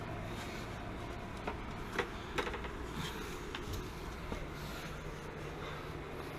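A few light knocks and scrapes as a gas water heater tank is shoved and shifted into a tight closet, most of them between about one and a half and three seconds in, over a low steady hum.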